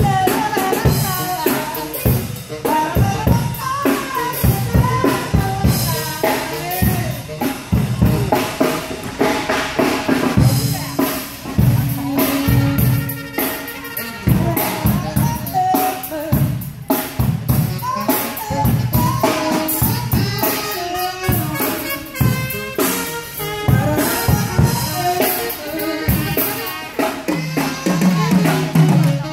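Up-tempo dance music with a prominent drum kit beat: kick, snare and rimshot strokes, played for partner dancing.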